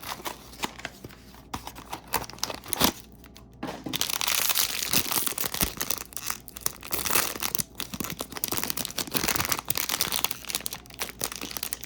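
A blind-box mini figure package being opened by hand: a few light clicks and taps of cardboard handling, then from about four seconds in the inner bag being torn open and crinkled continuously.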